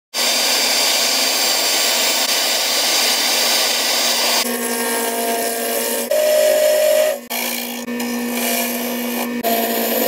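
A drill press boring into a wood block with a Forstner bit, under the steady rush of a dust-collection hose, for about the first four and a half seconds. Then a wood lathe spinning a wood blank, with a steady motor hum and the hiss of a skew chisel shaving the wood.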